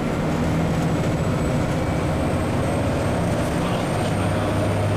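Scania N94UD double-decker bus under way, heard from inside the passenger saloon: the diesel engine and drivetrain hum steadily under road noise.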